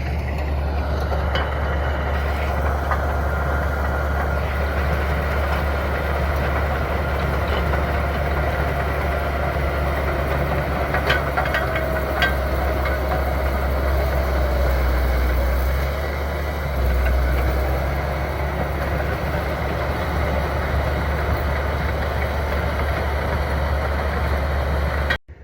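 Caterpillar D8K bulldozer's diesel engine running steadily under load, with a few sharp metallic clanks about halfway through.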